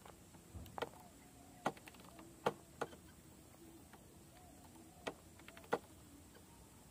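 Scattered sharp clicks and knocks, about six in all and irregularly spaced, from an RC rock crawler's tyres and chassis striking and slipping on bare rock as it climbs a steep face.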